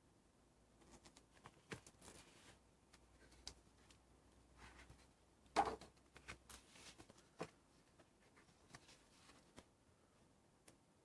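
A large hardcover book being handled: its cover opened and its pages turned, with faint rustling of paper and light taps and clicks, and one sharper knock about halfway through.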